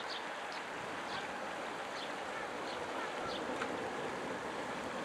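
Jet airliner's engines heard from the runway end as a steady rushing roar while the aircraft rolls away down the runway. A series of short high chirps sounds over it at irregular intervals.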